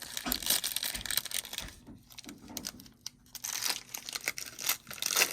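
Foil wrapper of a football trading-card pack crinkling and tearing, in two stretches of rustling with a short lull in between.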